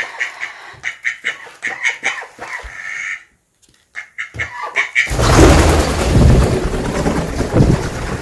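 Spot-billed ducks giving short, repeated calls, then, about five seconds in, a loud rush of flapping wings as they take off and fly.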